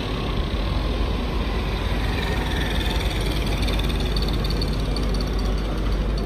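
Steady low rumble under general street noise, with no single sound standing out.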